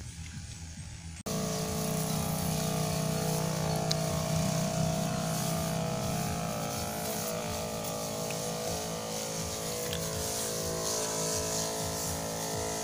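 Battery-powered knapsack sprayer's electric pump running with a steady hum, coming in abruptly about a second in, with a hiss above it from the spray wand.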